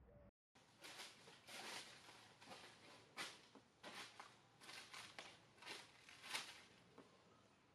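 Leaves and branches rustling in a tree as macaques shift about: about ten short, irregular swishes over five seconds.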